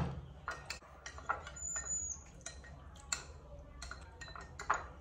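Spoon clinking and scraping against a small ceramic bowl while stirring powdered formula milk, a series of irregular light clinks.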